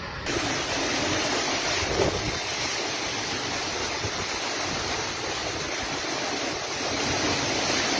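Heavy thunderstorm downpour: a dense, steady rush of rain.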